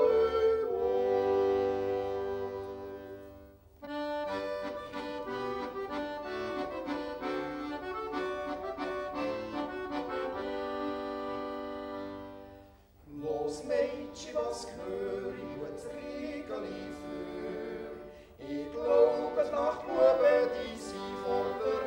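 Folk-style accordion music with sustained chords, in three phrases with short breaks about four and thirteen seconds in. The last phrase is livelier, with crisp note attacks.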